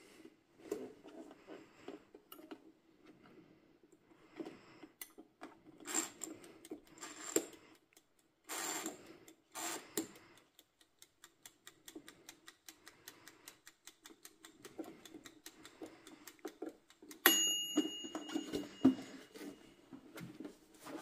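Clicks, knocks and rubbing as hands handle a Tower Vortx air fryer's plastic and metal body and drawer cavity, with a fast run of light ticks in the middle. Late on, a sharp clink rings briefly.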